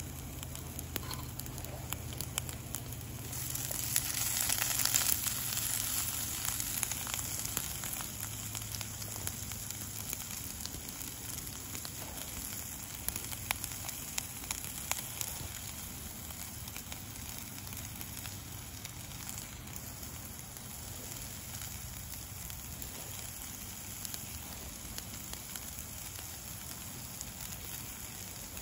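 A small campfire of sticks and brush crackling with frequent small pops, over a steady hiss of peppers and onions sizzling in a pan on a gas camp stove. The hiss swells louder for a couple of seconds about four seconds in.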